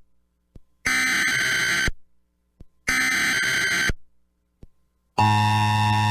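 Emergency Alert System SAME header: two one-second bursts of raspy digital data about a second apart, then the steady electronic attention tone starting near the end, marking the start of an emergency weather alert.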